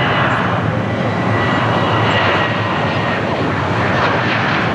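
Boeing 737-800's CFM56-7B turbofan engines at takeoff thrust during the takeoff roll: a loud, steady jet rush with a thin steady whine running through it.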